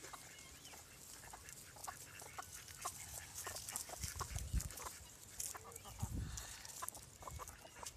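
Farmyard chickens clucking and calling in short scattered sounds, with two brief low rumbles about halfway through and a couple of seconds later.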